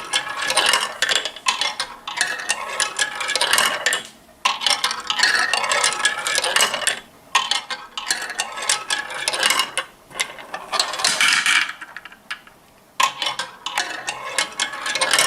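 Marbles clattering and clicking down a marble run track in bursts of rapid rattling, broken by short pauses a few times.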